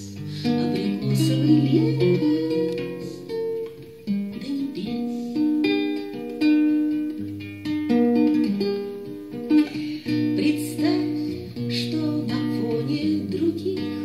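Classical guitar played solo, its notes plucked one after another in an instrumental passage between sung verses of a song.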